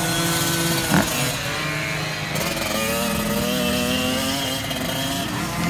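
Several youth motocross bikes' engines buzzing and revving around a dirt track, their pitch rising and falling with the throttle. A short thump about a second in.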